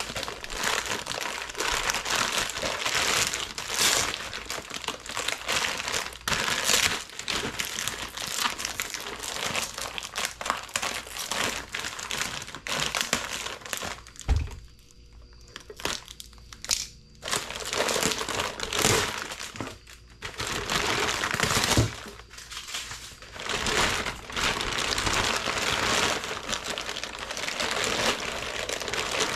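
Clear plastic bag crinkling and rustling continuously as it is unwrapped from a turbocharger by hand, with a short lull about halfway through.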